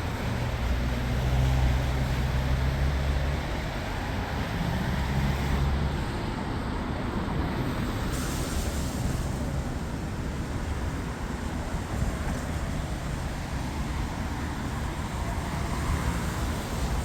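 Street traffic noise, a steady hiss with the low rumble of passing vehicles, heaviest in the first few seconds.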